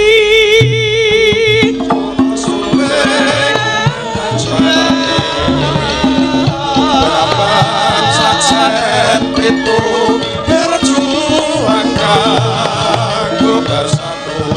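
A female sinden holds a long sung note with wide vibrato, then a Javanese gamelan with kendang hand drum comes in about two seconds in and plays a steady rhythm under her continuing song.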